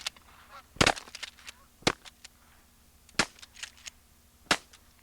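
Four shotgun shots about a second apart, each a sharp blast with softer cracks following, fired at passing Canada geese.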